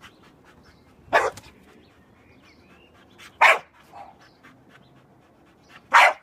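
Staffordshire bull terrier puppy barking: three short, sharp barks about two and a half seconds apart.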